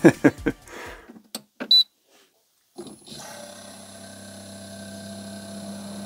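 A short electronic beep from the control panel about two seconds in. About a second later the fridge's 12 V compressor starts and runs with a steady hum that slowly grows louder.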